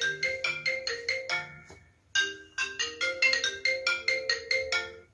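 Mobile phone ringing with a marimba-style ringtone: a quick melody of struck, ringing notes, played twice with a short break between the two phrases.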